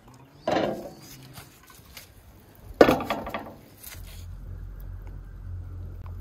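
Two metallic clanks of a baking tin being handled on a metal surface, about two seconds apart, the second louder. About four seconds in, a steady low rumble begins.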